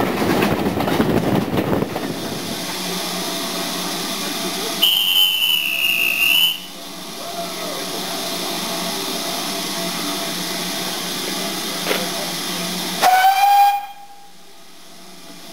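Steam-hauled train slowing into a station: a loud rush as it passes under a bridge, then a steady hiss of the train running, broken by a high held squeal or whistle about five seconds in and a shorter, lower one near the end, after which the sound drops away as the train comes to a stand.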